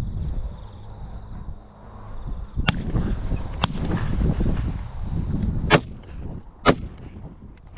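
Shotgun shots at flushed ducks: two fainter shots about two and a half and three and a half seconds in, then two loud, sharp shots about a second apart near the end, over wind rumble on the microphone.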